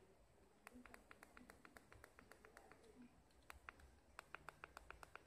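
Faint, quick clicking of the push buttons on an LCD5 e-bike control display, pressed over and over with a thumb to step through setting values. The clicks come in quick runs, a short run about a second in and a longer, faster one in the last couple of seconds.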